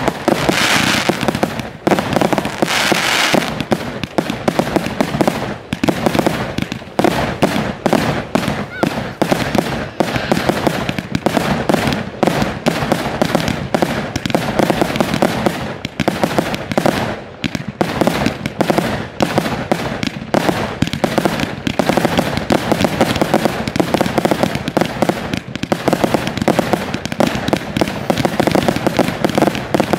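Aerial fireworks going off in a dense, unbroken barrage: launches and bursting shells, many sharp bangs a second.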